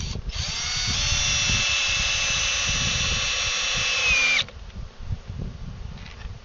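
Cordless drill/driver driving a screw into the wooden roof of a beehive. The motor runs at a steady pitch for about four seconds, then drops in pitch and stops.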